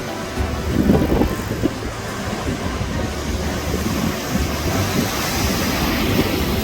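Steady low rumble and hiss with wind buffeting the microphone; the hiss swells about five seconds in.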